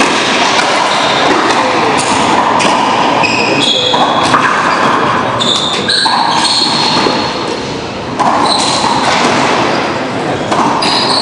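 Racquetball rally: the hard rubber ball repeatedly smacking off racquets and the court walls and floor, with brief high squeaks from court shoes on the hardwood floor.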